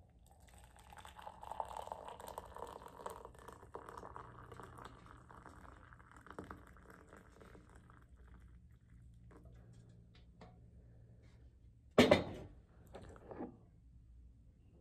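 Liquid pouring in a steady stream from an enamel pot into a large ceramic mug, tapering off about eight seconds in. Later comes a sharp knock, the loudest sound, then a couple of softer clunks.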